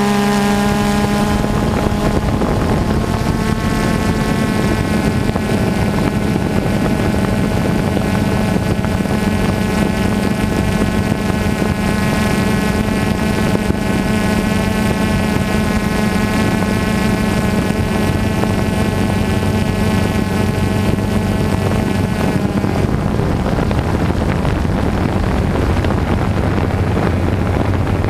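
DJI Phantom 2 quadcopter's motors and propellers running with a steady, even-pitched buzzing hum, with some wind on the microphone. About three quarters of the way through, the higher part of the hum fades and a lower hum is left.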